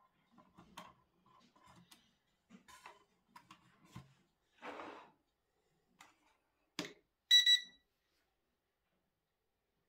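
Two quick high-pitched electronic beeps from a remote-control boat's electronics as the transmitter is switched on, just after a sharp click. Before that, small clicks and a brief rustle of hands handling the boat's plastic hull and battery hatch.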